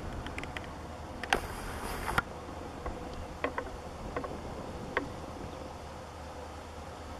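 Distant steady drone of the twin EMD WDG-4 diesel locomotives hauling the freight train. A camera zoom motor whirs for about a second, starting a little over a second in. Several short sharp chirps or clicks follow.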